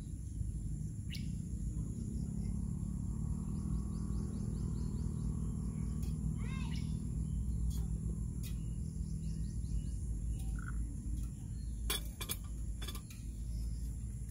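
Water poured in a thin stream from a gooseneck kettle into a moka pot's base, over steady outdoor background with a bird chirping. Near the end, a few sharp metal clicks as the kettle is set down on the camping stove's grate.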